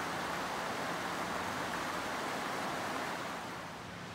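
Rushing water of a mountain creek: a steady rush that drops to a quieter level about three and a half seconds in.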